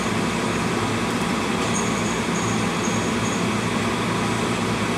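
Steady hum and whoosh of a kitchen range hood fan running over the stove, with a faint high whine coming and going in the middle.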